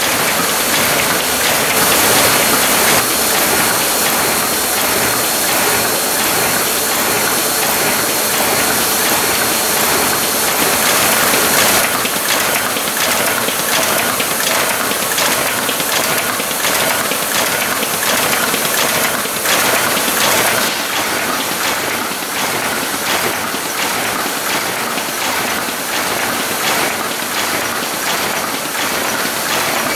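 Stahl KD78 combination buckle-and-knife paper folding machine running: a steady mechanical whir and airy hiss with a quick, regular clicking as sheets feed through. It gets somewhat quieter about two-thirds of the way through.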